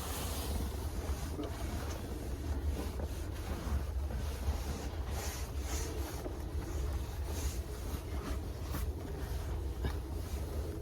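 Steady low rumble of wind or handling noise on the microphone, with scattered soft rustles and light taps.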